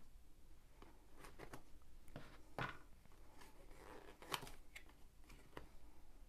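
Scissors snipping through the cardboard end of a box: a scatter of faint, short cuts and clicks, then the cardboard flap being pried open by hand.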